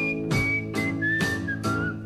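A person whistling a melody over strummed guitar chords, about two strums a second.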